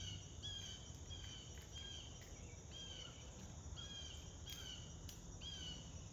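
An animal call repeated about twice a second: short high notes, each bending slightly downward, over a steady low hum.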